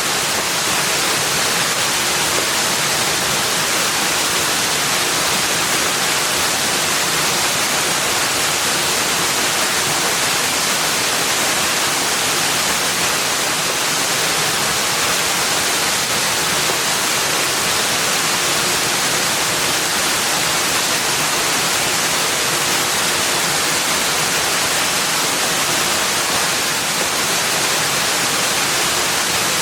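Steady, unbroken rush of flowing water, even and constant throughout.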